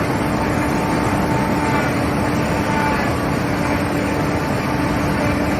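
4YZ-4T corn picker combine harvester running steadily, with an even mechanical din and a steady whine under it.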